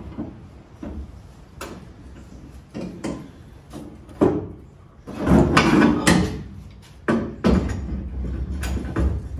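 A wooden 2x4 and steel C-clamps being handled against steel corner armor and a Jeep body: irregular knocks, clanks and scrapes as the board is laid along the edge and the clamps are fitted and tightened over it, busiest about halfway through.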